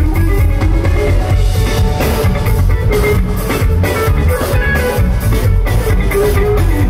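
Live rock band playing an instrumental passage: an electric guitar lead over bass and a steadily played drum kit.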